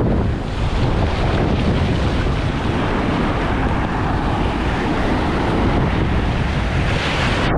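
Steady wind buffeting the microphone over ocean surf washing in.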